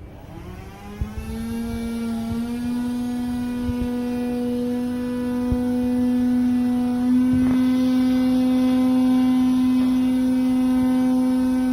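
A motor spins up, rising in pitch over the first couple of seconds, then runs at a steady pitch, with a single click partway through.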